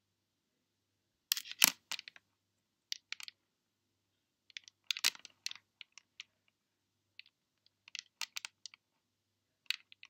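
Small, sharp clicks of a pearl necklace's sterling silver ball clasp and pearls being handled as the catch is pressed and the clasp is unhooked and hooked back. The clicks come in several short clusters with silence between them.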